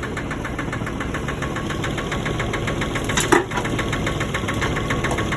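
Digger's diesel engine idling with a steady, rapid knock, and a single sharp clank about three seconds in.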